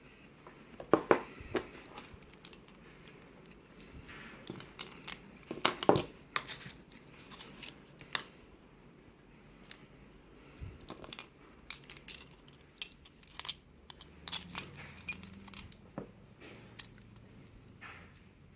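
Small metal parts of a gutted pin-tumbler lock being handled: irregular sharp clicks, taps and light rattles, the loudest about a second in and about six seconds in.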